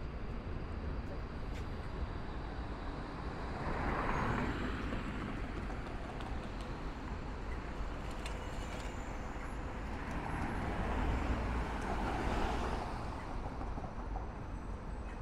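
City street traffic noise: a steady hum with two vehicles passing, one swelling about four seconds in and another around eleven to twelve seconds.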